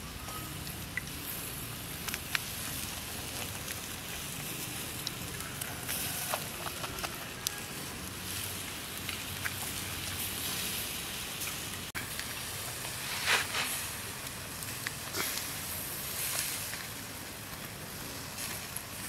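Chicken sizzling on a wire grill over a charcoal fire, with the coals crackling in scattered sharp pops over a steady hiss; a louder burst of hiss comes about thirteen seconds in.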